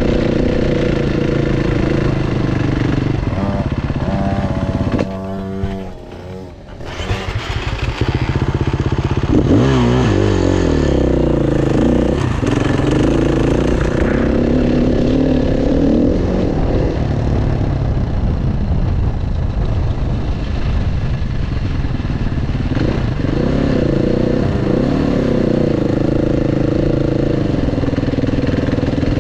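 Dirt bike engine heard from on board the bike, running steadily under way. About five seconds in the throttle closes briefly and the sound drops, then the engine picks up again, with revs swinging up and down a few times.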